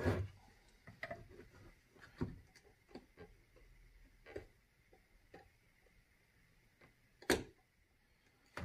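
Scattered light clicks and taps of a soldering iron tip and hand tools working against a lithium battery pack's circuit board and its solder tabs, with one sharper click about seven seconds in.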